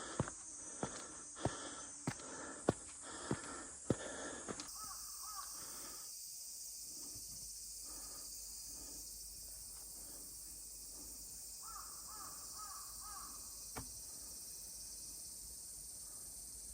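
Steady walking footsteps, about one every 0.6 s, for the first few seconds. After that, a crow caws a few times, faintly, in two short runs.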